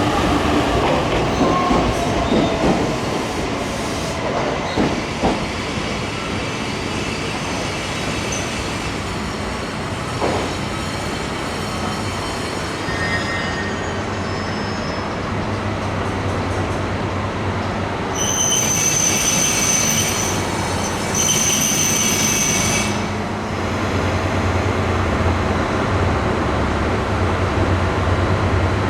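KiHa 183 series 1000-subseries diesel express train running through the station, wheels and rails clattering with falling squeals at first. Two bursts of high-pitched squealing come about two-thirds of the way through, and the low diesel engine hum grows stronger near the end.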